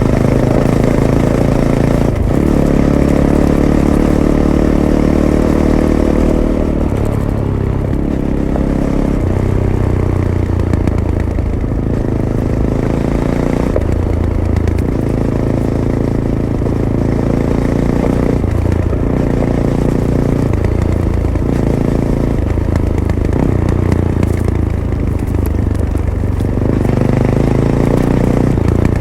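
Fantic Caballero 500's single-cylinder engine through its stock Arrow exhaust, running under way off-road, its revs rising and dropping every few seconds as the throttle is opened and closed.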